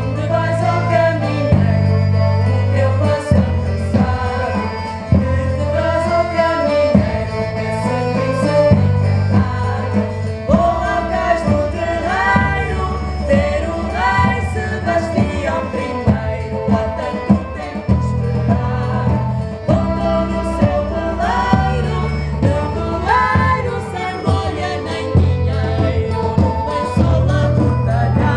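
Large folk ensemble playing a Portuguese tune live: voices singing the melody together over strummed guitars and low bass notes.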